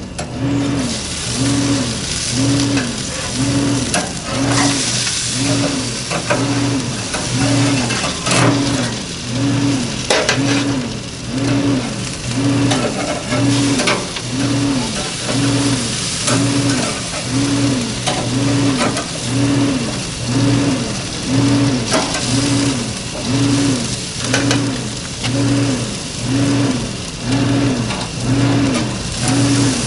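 Metal spatula scraping and clicking on the grill grate as burgers are lifted off, over a steady hiss. Under it runs a low hum that pulses evenly, a little less than once a second.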